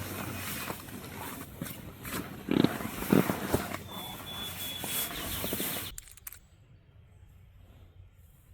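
Rustling and handling noises with many small clicks, with two short low grunt-like sounds about two and a half and three seconds in; the sound drops off abruptly about six seconds in.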